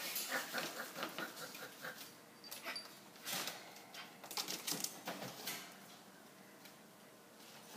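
Pet prairie dog lunging and scrabbling at a hand in its wire cage: clusters of sharp clicks and short scuffles through the first five seconds or so, then it quietens.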